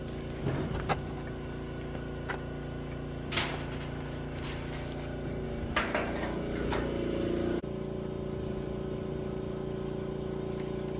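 A motor or engine runs steadily at an even pitch throughout, with a few sharp metallic clicks and knocks over it.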